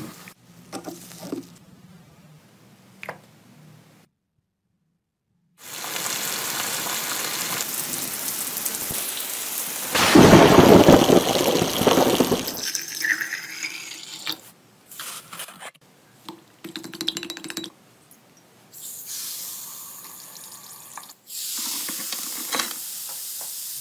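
Rain falling and water splashing into a funnel on a plastic jug, loudest for a couple of seconds about midway with a deep rumble. Near the end, a steady fizz of bubbles from metal parts soaking in a foaming solution in a glass jar.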